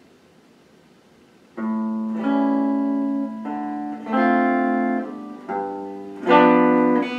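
Hollow-body archtop guitar playing a slow song intro: after faint hiss, chords are struck about a second and a half in and then roughly every second, each left to ring.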